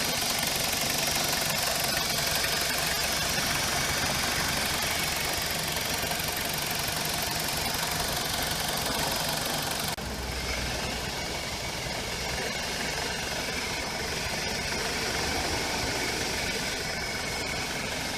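A BMW E46's N42 four-cylinder engine idles warm, with a fast ticking and an occasional clunk from the drive belt pulleys. The tensioner pulley has already been replaced, and the owner suspects the alternator idler pulley or the alternator. The sound gets a little quieter about ten seconds in.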